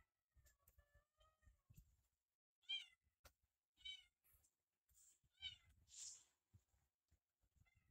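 Faint, short, high-pitched animal calls, several in a row, with soft low thumps between them.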